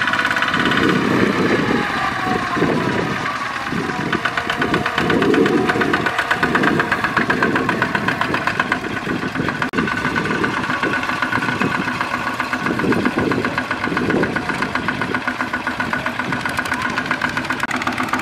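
Several two-wheel walking tractors' single-cylinder diesel engines running with a rapid knocking beat as they haul loaded trailers. A higher pitch falls over the first few seconds as one engine eases off.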